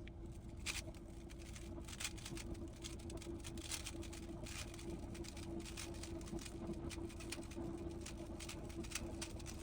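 A Rubik's Cube being turned quickly, its plastic layers clicking and clattering in irregular runs, over a steady low hum.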